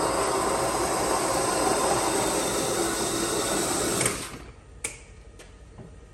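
Innovatech Predator 1800 20-inch concrete floor grinder running with grinding stones on a wetted concrete floor, a steady dense grinding noise that stops abruptly about four seconds in, followed by a couple of short clicks.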